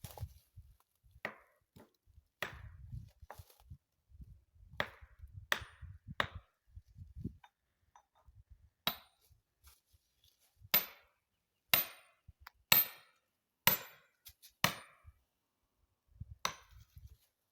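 Hammer driving a felling wedge into the cut of a tree: about thirteen sharp blows, roughly one a second, with a brief ring on each, the hardest strikes in the second half.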